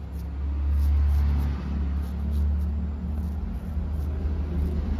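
A steady low rumble with faint, short scrapes of a razor shaving beard stubble, about two or three a second.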